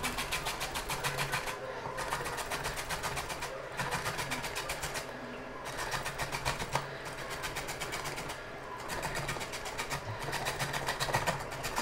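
Peeled raw green mango being grated on a handheld metal grater: quick, even scraping strokes, broken by brief pauses every couple of seconds.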